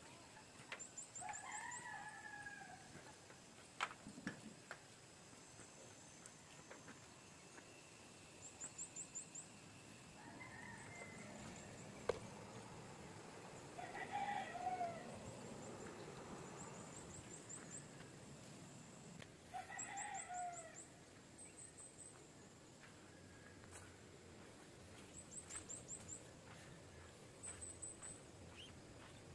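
Faint bird calls: four longer calls falling in pitch, spaced several seconds apart, and a high, quick chirping trill that repeats every few seconds.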